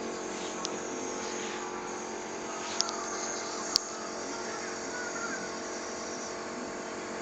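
Compressor nebulizer's small motor running with a steady hum, with a few brief sharp clicks, the sharpest just under four seconds in.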